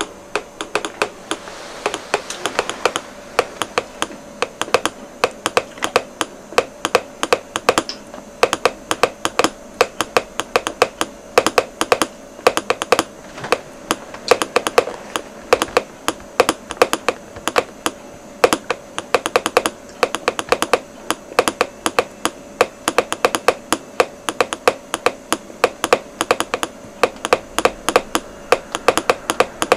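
Telegraph key clicking as Morse code is tapped out by hand: quick, irregular groups of sharp clicks with short gaps between them, over a faint steady tone.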